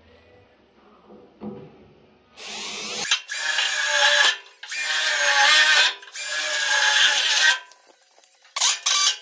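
Cordless drill boring through the truck bed's sheet steel in four runs of about a second each, drilling out the corners of the taillight cut-out. Near the end a pneumatic air saw gives a short burst.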